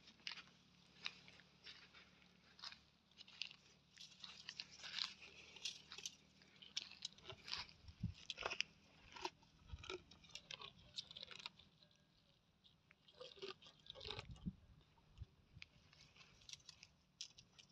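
Dromedary camel browsing a tree, with faint, irregular crunching and snapping of leaves and twigs as it tears and chews them.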